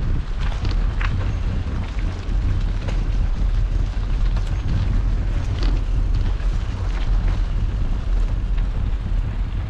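Wind buffeting the microphone of a GoPro on a moving bicycle, a steady heavy low rumble, with a few faint ticks and rattles from the ride.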